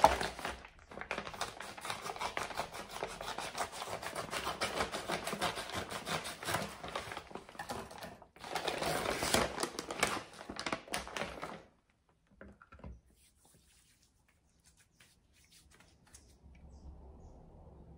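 A mailing envelope and its packaging being torn open and handled: a dense run of crinkling, rustling and tearing crackles that breaks off briefly about eight seconds in and stops about twelve seconds in.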